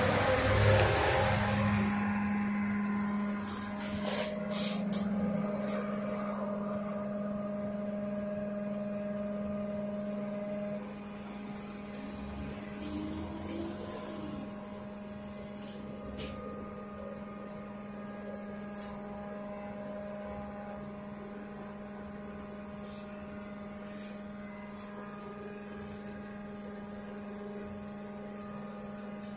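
Inside a LiAZ 5280 trolleybus: a steady electrical hum from the onboard equipment. Louder rushing noise fills the first couple of seconds, and a few faint clicks sound later.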